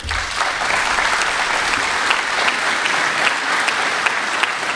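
Audience applauding steadily, many hands clapping, starting abruptly as a speech ends.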